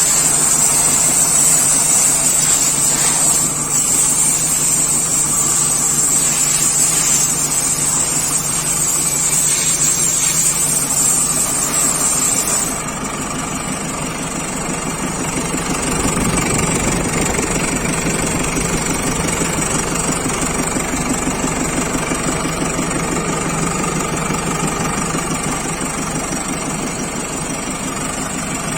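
JCB backhoe loader's diesel engine running steadily. About 13 seconds in the sound changes abruptly: a high hiss drops out and the engine continues a little quieter.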